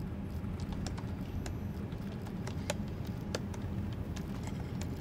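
Steady low hum of a ship's engine-room machinery, with scattered computer-keyboard key clicks, a few per second at most.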